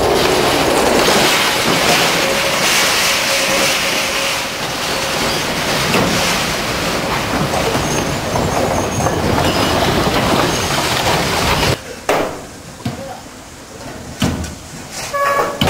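Small 600 mm narrow-gauge electric mine locomotive and its coal wagons running past close by: a loud, steady noise of wheels on rail. It cuts off suddenly about twelve seconds in, leaving quieter surroundings with a few short knocks.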